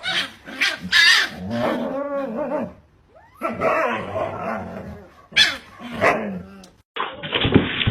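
A dog barking and vocalising in two long bouts, its pitch rising and falling. Near the end the sound switches abruptly to a run of short knocks and clatter.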